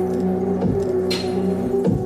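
Recorded electronic dance music: sustained synth tones over low drum hits, with a bright percussive hit about a second in.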